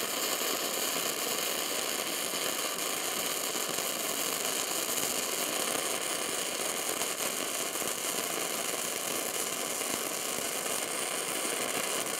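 WR0-250 gasless flux-core wire welder running a continuous bead at maximum output, wire feed set a little over half speed: the arc goes steadily throughout, spraying spatter.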